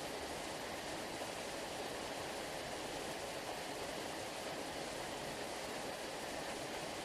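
Sea surf heard as a steady, even rushing with no distinct wave breaks or swells, like a waterfall.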